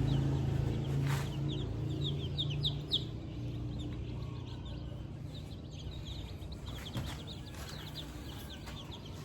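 Young chicks peeping: many short, high peeps, thickest in the first three seconds, over a low hum that fades after about five seconds.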